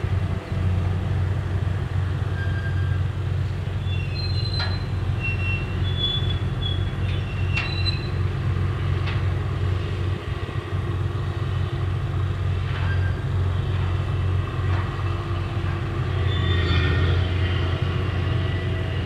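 Crane ship's engine and grab-bucket winch running with a steady low hum, overlaid by short high metallic squeals and a few sharp clanks as the clamshell grab is worked on its cables.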